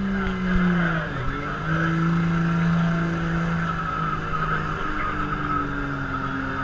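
Ford 6.0L Power Stroke turbo-diesel V8 pickup pulling a sled at full throttle. The engine note dips in pitch about a second in, then holds steady, stepping a little lower near the end.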